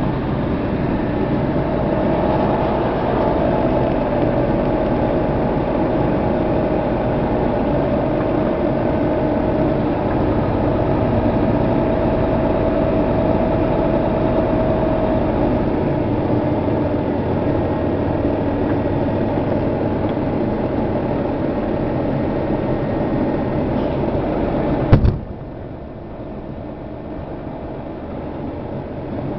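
Steady drone of an idling vehicle engine, then near the end a single sharp boom: the shock wave of a distant explosion, arriving several seconds after its flash.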